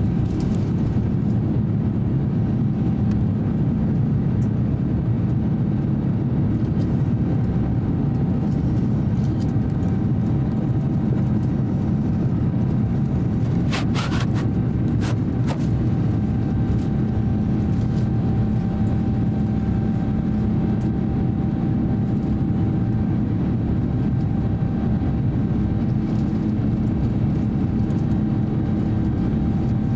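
Steady cabin noise of an Airbus A350-900 in its climb after takeoff: the low drone of its Rolls-Royce Trent XWB engines and the airflow around the fuselage, with a faint steady hum. A few brief clicks about halfway through.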